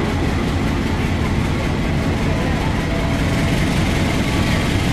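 Passenger coaches of a long-distance train hauled by a CC 206 diesel-electric locomotive rolling past the platform: a steady, loud, low rumble of wheels and running gear, with the locomotive's diesel engine.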